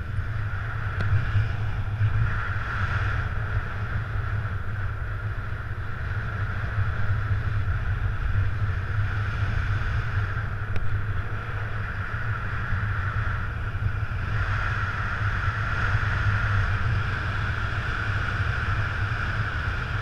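Airflow buffeting the microphone of a paraglider's camera in flight: a steady low rumble with a rushing hiss that swells twice.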